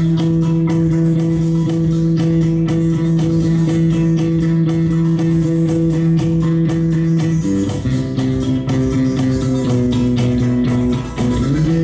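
Live music: electric bass played over long held droning notes, with plucked attacks throughout. The held pitches step to a new chord about seven and a half seconds in, then slide back near the end.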